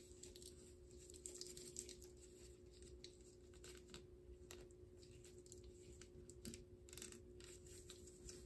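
Near silence with faint, irregular scratching and rubbing from hand work on freshly grouted mosaic tiles, over a steady faint hum.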